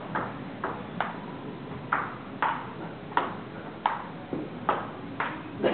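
Ping pong rally: the ball clicking off paddles and the table, about ten sharp ticks spaced roughly half a second to a second apart.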